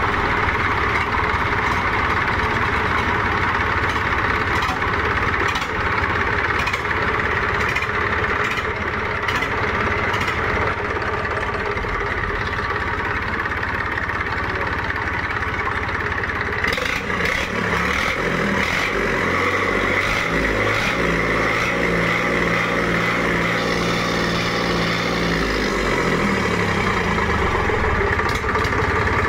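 Bare tractor diesel engine running on the shop floor with a steady clatter. A little over halfway through its note shifts to a clearer low hum, holds for several seconds, then shifts back near the end.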